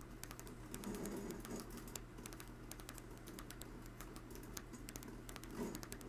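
Homemade rotary switch turned by a small 12-volt motor running slowly, just above stalling. Its brushes strike the hard-drive bearing contacts to pulse the coils, making a fast, irregular run of sharp clicks over a low steady hum.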